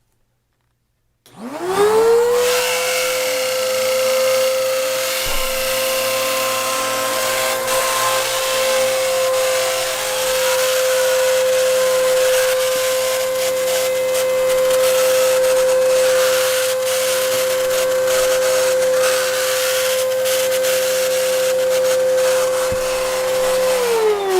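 Bissell PowerLifter Multi-Cyclone vacuum cleaner switched on, its motor spinning up within a second to a loud, steady jet-like whine that is normal for this vacuum. It runs at an even pitch, then is switched off near the end and its whine begins to fall as the motor winds down.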